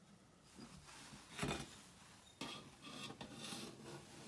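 Faint metal scraping and small clicks of hands and a valve spring compressor working valve keepers into a compressed valve spring on an aluminium motorcycle cylinder head, with one short louder knock about a second and a half in.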